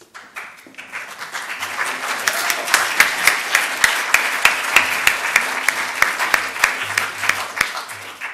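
Audience applauding: the clapping builds up over the first couple of seconds, holds, and tapers off near the end.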